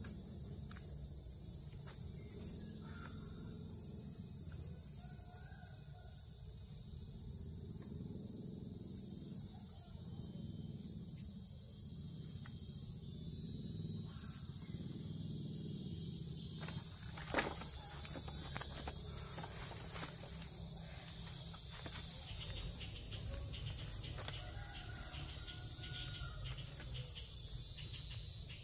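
A steady insect chorus, a continuous high shrill drone of crickets, over a low rumble. About 17 seconds in comes one sharp knock, the loudest thing, followed by scattered light clicks and rustles of handling.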